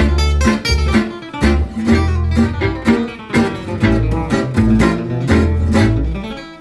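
Background music: acoustic guitar playing a quick run of plucked notes over a low bass line.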